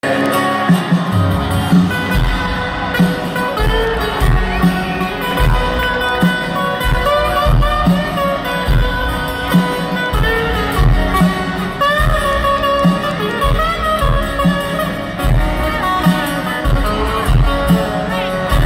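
Live band music from a concert PA, led by two strummed acoustic guitars over a regular low beat. Recorded from within the audience.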